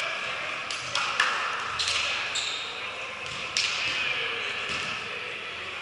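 Volleyball play in a gymnasium: a few sharp smacks echoing through the hall, the loudest about a second in, over a steady background of hall noise.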